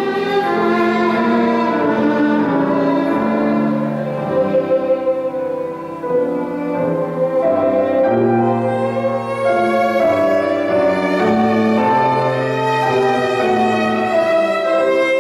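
Violin and grand piano playing a classical duo: the violin carries a sustained bowed melody while the piano sounds low held notes and chords beneath it.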